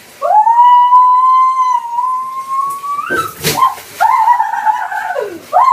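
A man's long, high-pitched scream held for about three seconds, then a brief sharp noise and a second shorter scream that falls away in pitch, ending on a rising yelp.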